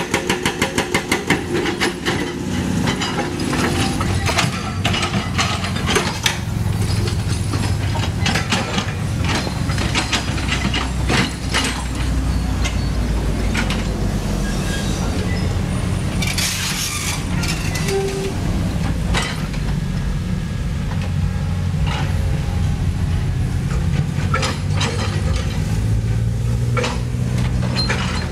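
CAT 320D hydraulic excavator's diesel engine running steadily under load while the bucket knocks and scrapes against rock and earth, with a fast rattle of clicks in the first second or two and scattered knocks after. A brief hiss comes past the middle.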